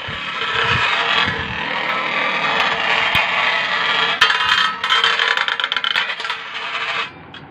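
Two Beyblade spinning tops, a handmade metal one and a Lightning L-Drago, whirring and scraping as they spin on a stainless steel dish, with sharp clacks where they collide. The noise cuts off suddenly about seven seconds in.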